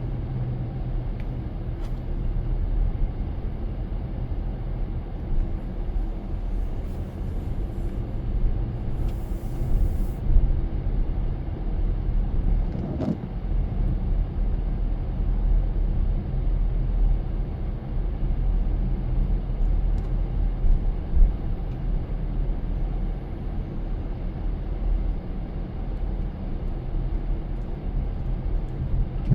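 A car driving on a wet road: a steady low rumble of engine and tyres, with an even hiss of tyre and road noise.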